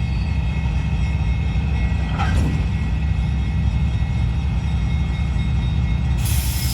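Freight train running with a steady, loud low rumble. A brief sharp sound comes about two seconds in, and a high hiss starts near the end.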